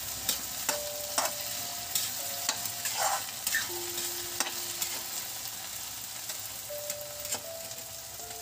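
Okra and potato pieces sizzling in a steel kadhai as a metal spatula stirs them, with frequent clicks and scrapes of the spatula against the pan, most of them in the first half.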